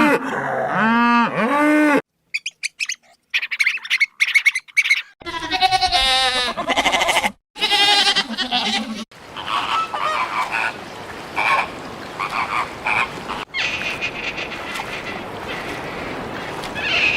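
A run of different animal calls spliced one after another, cutting abruptly from one to the next every few seconds: pitched rising-and-falling calls, then short rapid clicks and calls, then repeated higher calls over a hissy background.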